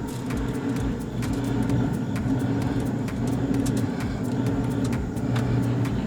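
A steady low mechanical hum like a running engine or motor, with many short sharp clicks scattered through it.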